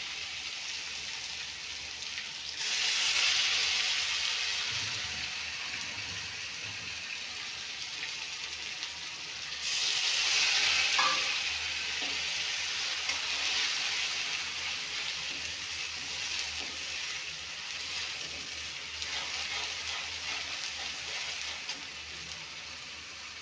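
Garlic and onion paste frying in hot oil with whole spices, a steady sizzle as it is stirred with a spoon. The sizzle swells louder about two and a half seconds in and again about ten seconds in.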